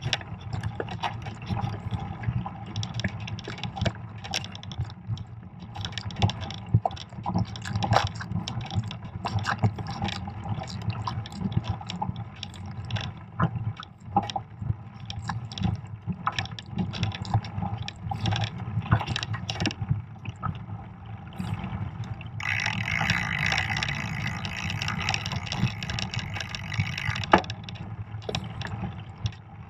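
Fat bike riding along a snowy trail: a steady low rumble of the ride with frequent small knocks and rattles from the bike, and a louder hiss for about five seconds near the end.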